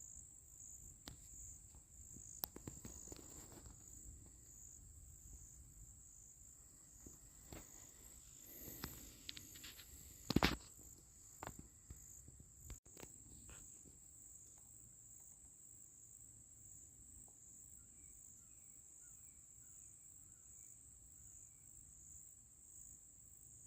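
Steady high-pitched chorus of insects in the woods at dusk, with small rustles and faint clicks. A single sharp knock about ten and a half seconds in is the loudest sound, and a few faint short chirps come later.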